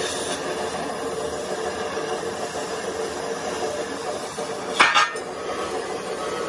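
Oxy-acetylene cutting torch hissing steadily as it cuts through a steel truck chassis rail. A short, sharp, loud noise cuts in just before five seconds in.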